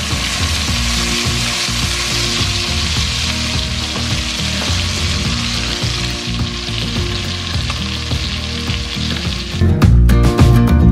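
Chicken pieces searing in butter in a stainless steel pot: a steady sizzle of frying fat. Just before the end it changes abruptly to a louder section with music.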